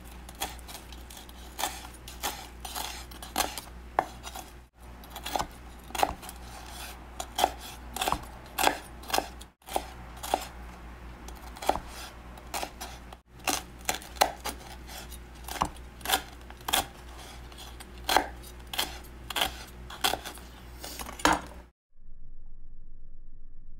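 Chef's knife slicing grilled pork on a wooden cutting board: irregular sharp knocks of the blade meeting the board, one or two a second, over a steady low hum. The knocking stops about two seconds before the end.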